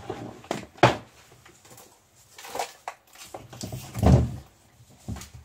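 Objects being moved and set down on a workbench shelf: a few sharp knocks and clatters, with a heavier thud about four seconds in.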